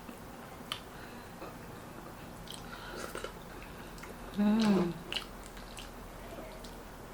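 Close-miked chewing and mouth sounds of a person eating: soft wet smacks and small clicks, with a short hummed 'mm' of enjoyment about four and a half seconds in.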